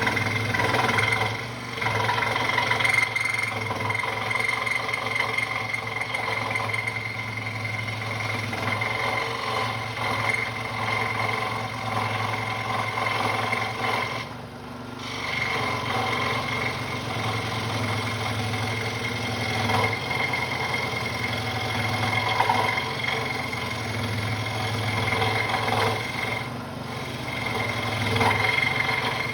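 Central Machinery (Harbor Freight) scroll saw running, its reciprocating blade cutting a 1-inch wooden board: a steady mechanical buzz with a low motor hum. It dips briefly about a second and a half in, around the middle, and near the end.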